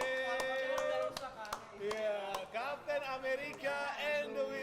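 Music with a steady beat and a voice singing or speaking over it.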